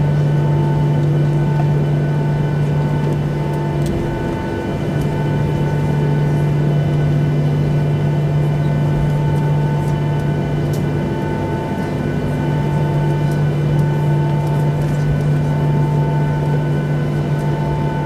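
Steady cabin drone inside a Boeing 737-800 on the ground, a strong low hum with fainter higher tones, some of which pulse on and off.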